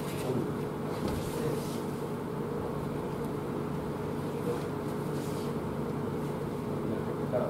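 Steady low hum of room noise, with a few faint, brief rustles from aikido practice uniforms and feet moving on tatami mats.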